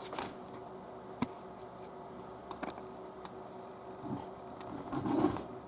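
Faint steady hum of a running desktop PC, with a few scattered soft clicks of handling.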